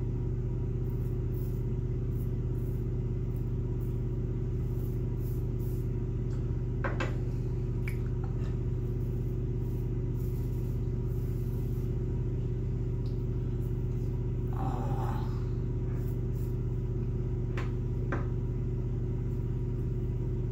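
A few short scrapes of a Mühle R41 double-edge safety razor cutting lathered stubble, over a steady low hum.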